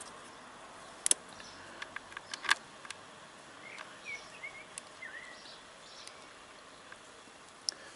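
A few sharp clicks and taps from hands working at a motorcycle battery's terminal leads, the loudest about a second in and again about two and a half seconds in. Faint bird chirps come in around the middle.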